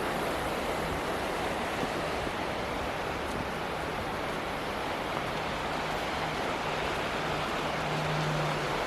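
Steady rushing roar of a waterfall. A faint low hum comes and goes beneath it and is clearest near the end.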